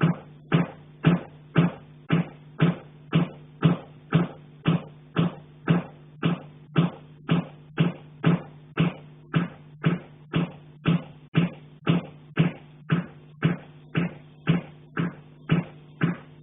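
Heating pipe being struck in a steady rhythm, about two blows a second, each knock ringing briefly through the metal. The resident takes the knocking for someone hitting the pipe from the attic.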